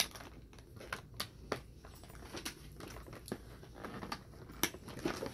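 Small plastic toy pieces and packaging being handled, making irregular light clicks and crinkling, with one sharper click about four and a half seconds in.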